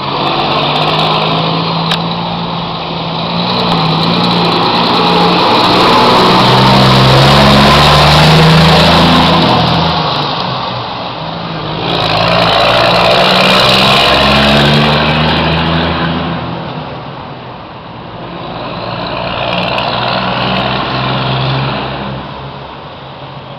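Scania R420 truck's 12-litre straight-six diesel pulling away hard, its engine note rising through the gears. It is loudest as it passes, dips briefly about eleven seconds in, and swells again. It then fades as the truck drives off, with a smaller swell near the end.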